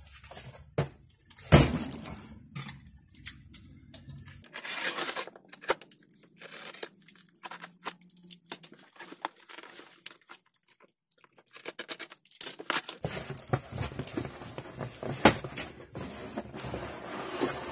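Parcel packaging being torn and crinkled open by hand: irregular tearing and rustling, with scattered sharp knocks and clicks, the loudest about a second and a half in.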